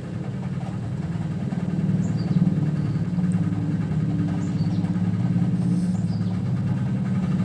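Steady low hum of a running motor, even throughout.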